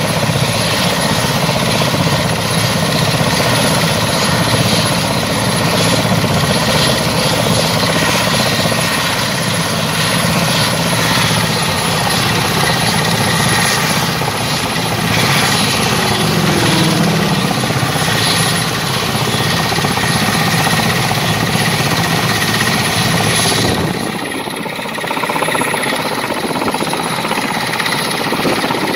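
Mil Mi-17 military helicopter running on the ground: its turbine engines and turning rotors make a loud, steady rush with a low throb and a thin high whine. About 24 seconds in the sound changes abruptly, the low throb dropping away.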